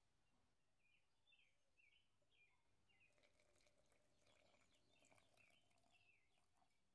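Near silence, with faint high chirps repeating about twice a second.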